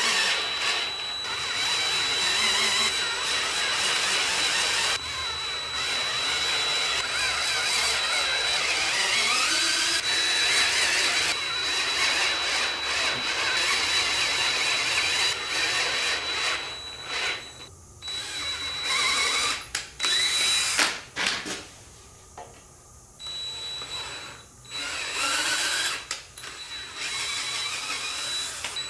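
A power tool running steadily, then in a series of short bursts with brief stops over roughly the last ten seconds.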